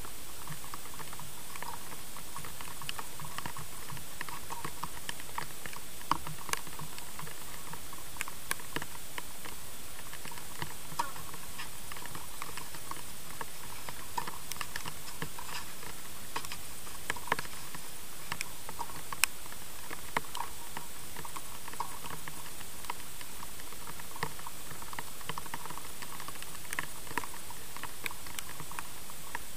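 Steady hiss with many faint irregular ticks and, every few seconds, a sharper knock: tennis balls being struck with a racket and bouncing on a clay court, at a distance.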